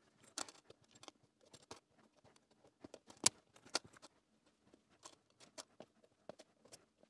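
Handling sounds of LEDs being fitted into a clear plastic jig and their wire legs bent over: small irregular clicks and taps, the loudest a sharp tap about three seconds in.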